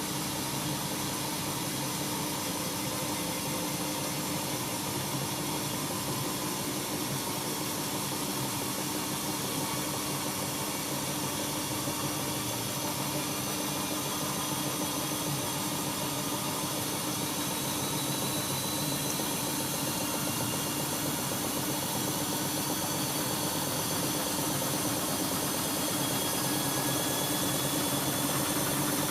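Siemens iQ washing machine running: a steady motor hum and whine with a mechanical rush, growing slightly louder toward the end.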